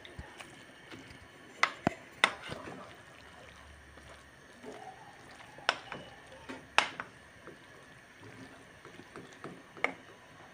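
Wooden spoon stirring trida pasta squares in a pot of butter and broth, with about six sharp knocks of the spoon against the pot: three close together about two seconds in, two more near the middle, and one near the end.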